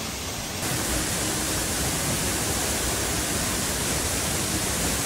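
Waterfall rushing steadily into a pool, a dense even hiss of falling water.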